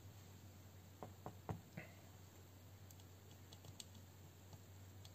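Faint clicks and light ticks of small airsoft gearbox parts being handled: four slightly louder clicks a second or so in, then a scatter of lighter ticks.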